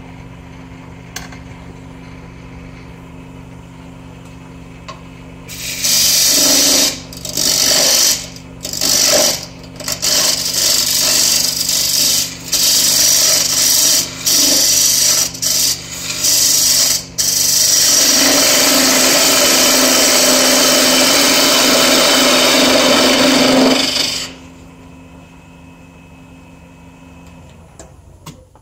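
Wood lathe running with a steady hum while a parting tool cuts a tenon on a dry wooden pepper-grinder blank: a series of short loud cuts with pauses, then one long continuous cut. The lathe winds down and stops near the end.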